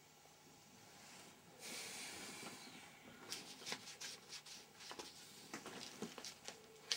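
Blanket and bedclothes rustling as a person gets up from a bed, followed by a run of light knocks and shuffling movements, with one sharp click near the end.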